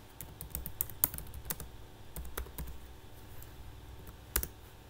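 Typing on a computer keyboard: a quick, uneven run of key clicks over the first two and a half seconds or so, then one louder key strike near the end.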